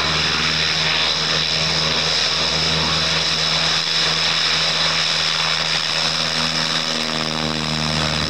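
Piper Super Cub's propeller engine at full power on its takeoff roll, a loud steady drone.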